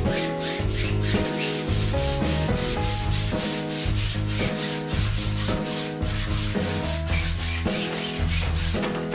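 Wide flat paintbrush scrubbing thin acrylic paint onto a stretched canvas in quick, repeated back-and-forth strokes. Background music with a pulsing bass plays underneath. The brushing stops near the end.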